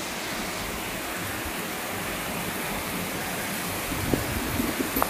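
Heavy typhoon rain pouring steadily, an even rushing hiss, with a few faint taps near the end.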